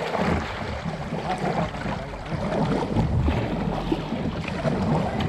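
River water running, with wind buffeting the microphone.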